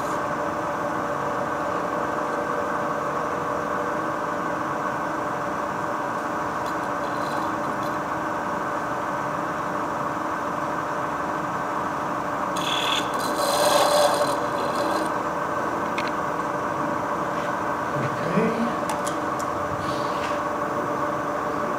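Wood lathe running steadily with a constant hum. A turning tool cuts the spinning wood for about two seconds a little past the middle, with a few light knocks later on.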